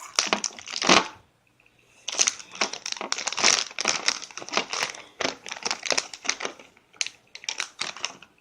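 Plastic wafer wrapper crinkling and rustling as it is handled and torn open, in a short burst, a pause of about a second, then steady crackling.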